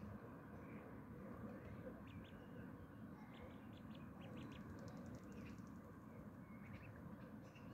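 Faint, scattered high chirps and peeps of birds, with a quick run of thin high notes a little past the middle, over a low steady background rumble.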